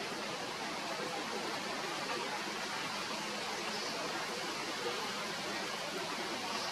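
Steady, even hiss of background noise, with no distinct calls or knocks standing out.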